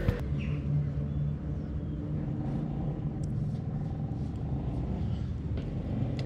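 Honda Falcon 400's single-cylinder four-stroke engine running steadily under way.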